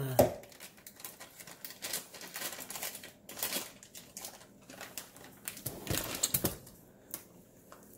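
Irregular light clicks and crinkles from a plastic bag of chocolate chips being handled, with a sharper knock just after the start.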